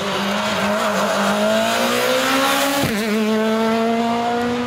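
Rally car engine pulling hard under acceleration, its note climbing steadily, with a quick upshift about three seconds in after which it climbs again.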